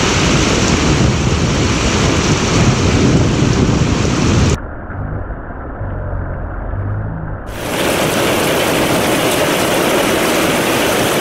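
Heavy rain and hail falling, a loud steady hiss. About four and a half seconds in, the sound turns muffled and low with a deep rumble for about three seconds. Then the full hiss returns as hail pelts a shingle roof.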